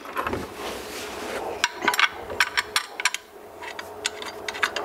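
Metal bolts and a hand tool scraping and clicking against the steel cover plate of a side-by-side's primary clutch as its six plate bolts are fitted. A rubbing scrape comes first, then irregular sharp metallic clicks from about a second and a half in.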